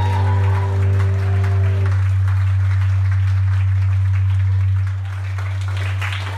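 A live rock band's final chord rings out over a steady low bass drone, the chord cutting off about two seconds in, and the audience applauds while the low drone lingers underneath.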